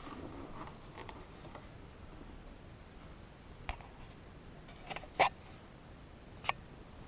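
Soft handling noise as the electric unicycle is laid on its side on the carpet, then three sharp clicks, the second, about five seconds in, the loudest.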